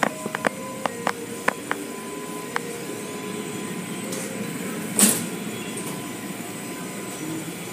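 Automatic car wash heard from inside the car: a steady rush of spraying water and machinery, with a run of sharp taps in the first two seconds and one louder hit about five seconds in.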